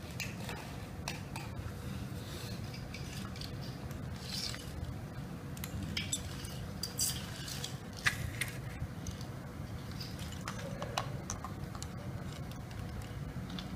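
Scattered light clicks and scrapes of a plastic Tenda router casing being handled and opened, over a steady low hum.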